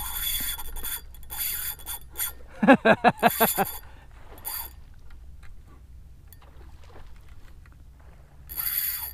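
Spinning reel's drag buzzing in a series of bursts as a hooked jack runs and strips line off the reel, loudest at the start and again near the end.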